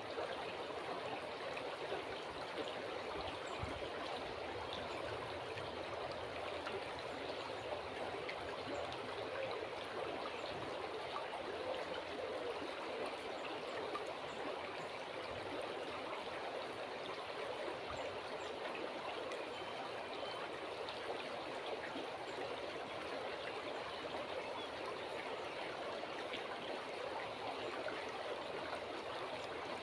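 River water flowing steadily, a continuous even babbling rush.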